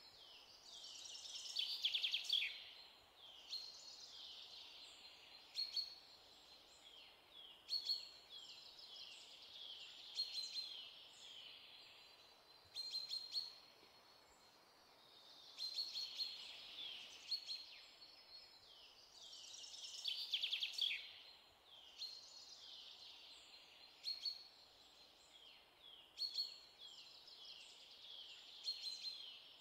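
Birds singing: flurries of quick, downward-sliding chirps that come and go every few seconds over a faint steady hiss.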